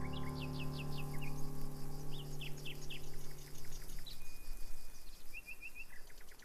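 Bird ambience: many short chirps and calls from several birds, with a brief high whistle and a quick trill about halfway through. A low held musical drone fades out about four seconds in.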